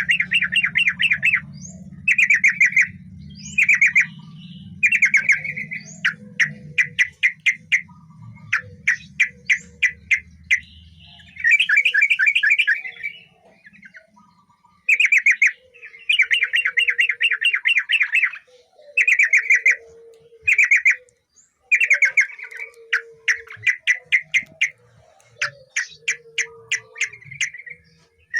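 Yellow-vented bulbul (trucukan) singing: short phrases of fast, rattling chattering notes, repeated one after another with brief pauses between them.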